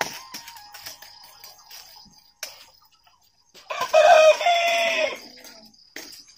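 A rooster crowing once, a loud call about a second and a half long, over faint background music and a few light clicks.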